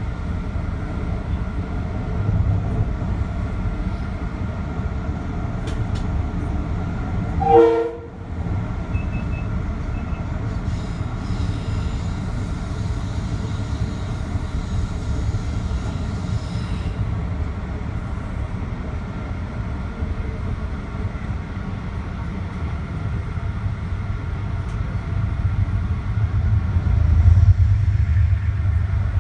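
Metro-North commuter train running along the track, heard from the front of the train: a steady low rumble of wheels and motors, with one short chord-like horn blast about seven and a half seconds in. Near the end the rumble swells.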